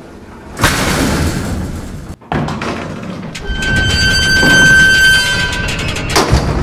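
Loud rumbling noise that starts suddenly about half a second in and cuts out briefly near two seconds. It returns with a steady high-pitched whine over it through the middle, and a sharp hit comes near the end.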